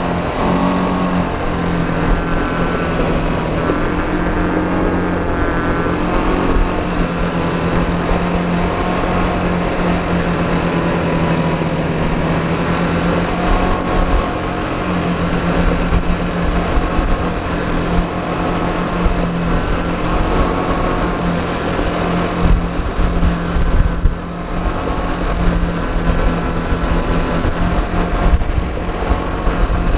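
Quad bike (ATV) engine running at a steady cruising speed, its note holding nearly level, with wind rumble on the microphone.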